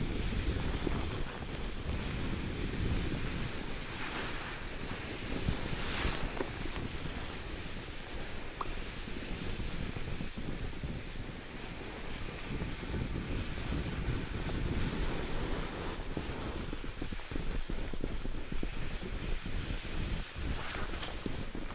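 Wind rushing over the microphone with a steady hiss of skis sliding through deep snow on a downhill run.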